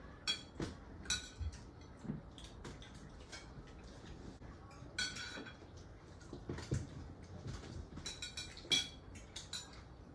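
Forks and spoons clinking and scraping against plates as several people eat, in scattered, irregular clinks, a few of them sharper and ringing.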